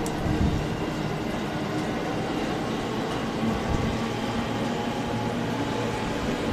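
Electric commuter train departing a station platform, its cars rolling past with a steady running noise and a faint hum.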